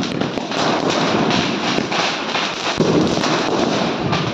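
Diwali firecrackers going off on the ground as a dense, continuous crackle of rapid pops.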